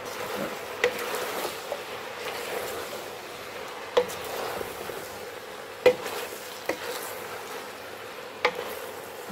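Pork, carrot and onion stir fry sizzling in a large aluminium pot as it is stirred with a wooden spoon. Five sharp knocks of the spoon against the pot punctuate the sizzle.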